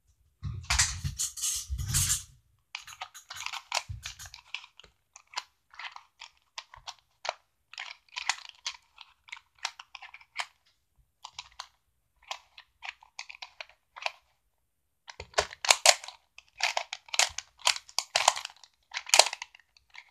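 Rubik's cube being twisted by hand: irregular runs of quick clicking and clacking as its layers turn, broken by short pauses, with a louder burst of handling noise in the first couple of seconds.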